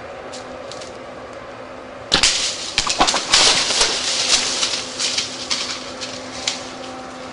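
A sharp crack of a bow shot about two seconds in, followed at once by a deer crashing away through dry leaves and brush for several seconds, with scattered snaps, fading near the end.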